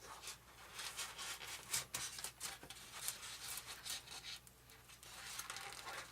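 Faint, irregular scratching and rustling as a servo wire is worked through a channel cut into an RC airplane's airframe.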